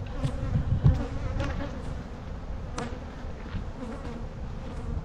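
Honeybees buzzing around an open hive, with a few dull knocks in the first second and a short click near three seconds in.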